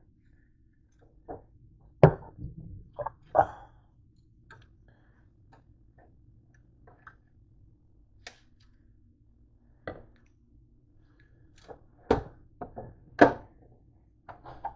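Scattered knocks and clunks as a contact grill and kitchenware are handled on a counter, the loudest about two seconds in and twice more near the end, over a faint steady hum.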